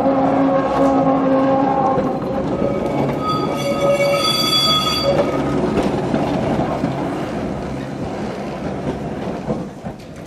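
Vintage electric tram running past over the rails: a steady whine from its motor and gearing at the start, a high squeal from the wheels on the track about three to five seconds in, then the running noise fading as the tram moves away.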